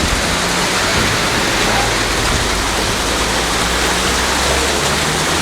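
Heavy downpour of rain: a loud, steady rushing hiss of rain and running water with no let-up.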